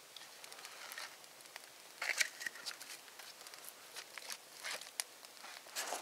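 Wood campfire crackling, with scattered sharp pops, over short bursts of rustling and crunching as someone moves in the snow beside it.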